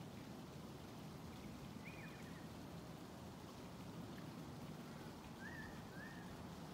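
Faint, steady outdoor background rumble, with three brief high chirps that sound like a bird calling: one about two seconds in and two close together near the end.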